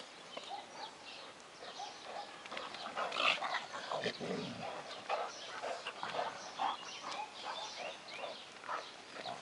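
A pug and a black short-haired dog at play, making a string of short vocal sounds, with a lower, longer sound about four seconds in as they face off.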